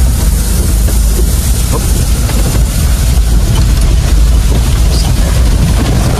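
Vehicle engine running steadily under load, heard from inside the cab as a constant low drone, with heavy rain and road noise making a steady hiss over it.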